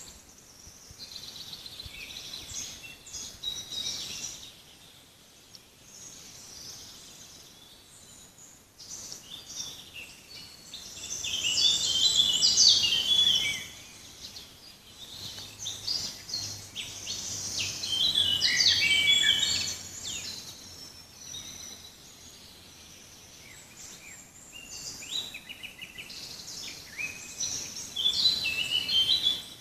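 Several songbirds singing in a forest: bursts of fast, high chirping and trilling phrases. The singing is loudest about a dozen seconds in, again around eighteen seconds in and near the end, with quieter calls in between.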